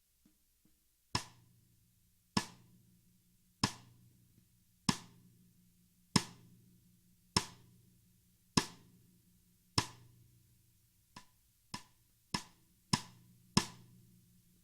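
Sonor Designer 14x5-inch maple-shell snare drum struck with single hits, eight about a second apart, each ringing on with a low drum tone. About eleven seconds in the hits come twice as fast for five more strokes, the first of them softer.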